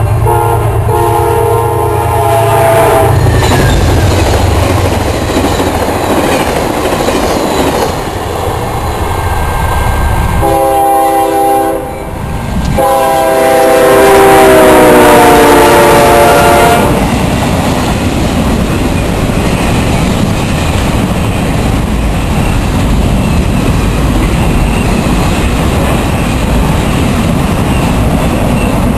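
Diesel locomotive horns blowing as trains pass at speed: a chord horn from Amtrak P32AC-DM #701 in the first few seconds, a short horn blast around the middle and then a longer one that drops in pitch as the locomotive goes by. Between and after the horns, the steady rumble and wheel clatter of a passing train.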